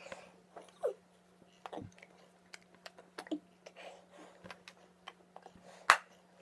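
Scattered soft clicks, taps and quiet mouth and breath noises from a person signing with her hands at a desk, with one sharper click near the end, over a steady low electrical hum.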